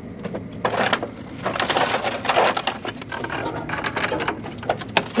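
Irregular clattering and knocking of scrap metal being handled and set down, with a busier run of rattling about halfway through.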